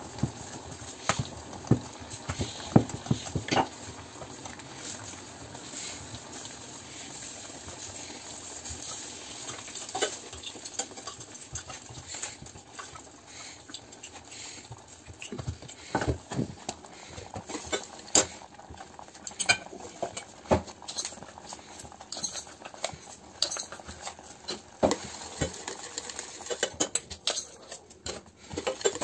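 Scattered knocks and taps of a wooden rolling pin rolling puri dough on a wooden board, with dough being handled. Near the end, a metal slotted spoon clinks and scrapes in a steel pan.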